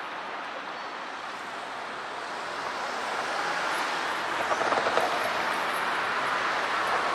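Low-floor tram approaching along the track, its rolling noise a steady rush that grows louder over the last few seconds.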